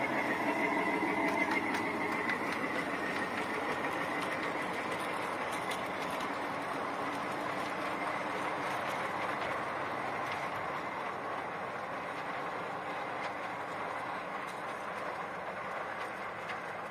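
5-inch-gauge miniature train with a diesel-outline locomotive running over its track and bridges: a steady rumble of wheels on rail with faint clicks from the rail joints, slowly fading as the train moves away.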